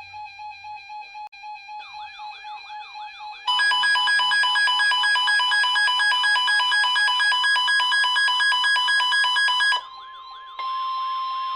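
Electronic weather-alert alarms sounding over one another: a pulsed beeping tone, joined about two seconds in by repeated rising siren-like sweeps, then a much louder rapid beeping that stops near ten seconds. Near the end a single steady tone comes in, the NOAA Weather Radio warning alarm tone that comes before a warning is read.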